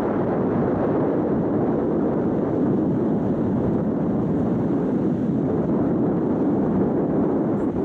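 Steady rushing rumble aboard a moving river ferry: engine and water noise mixed with wind on the microphone.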